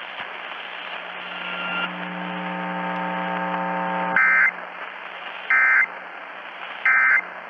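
Three short, loud EAS end-of-message data bursts, about a second and a half apart, over the steady hiss of a radio feed, closing out a test of the Emergency Alert System. Before them a low buzzing tone grows louder for about two seconds and cuts off.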